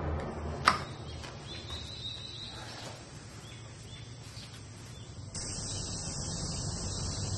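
Outdoor ambience: a sharp click under a second in, faint bird chirps, then a steady high insect drone that sets in abruptly about five seconds in.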